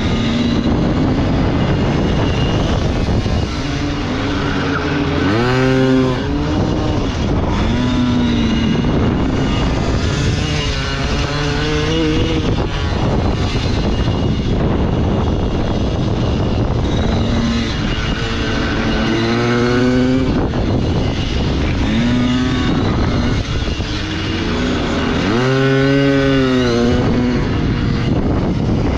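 Pit bike engine heard onboard, its pitch climbing hard on each acceleration out of a corner and dropping back off the throttle, four or five times in a row, with wind rushing past.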